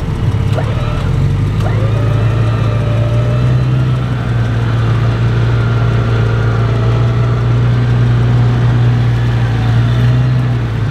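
Off-road 4x4 engine running steadily under load, its revs stepping up slightly about a second and a half in, with a thin wavering whine above it, during a winch recovery of a stuck vehicle.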